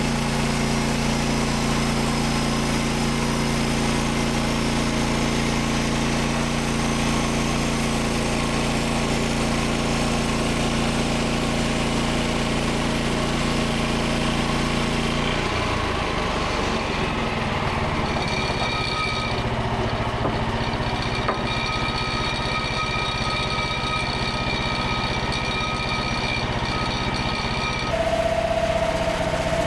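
Engine of a Frontier OS27 portable bandsaw sawmill running steadily. About halfway through the note changes to a rougher running with thin high whines over it, and near the end a new steady tone comes in, a little louder.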